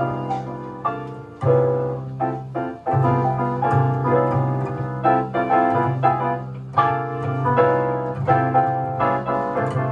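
Piano music played back from reel-to-reel tape through a 71A parallel single-ended tube amplifier, a quick run of notes over a sustained low bass part.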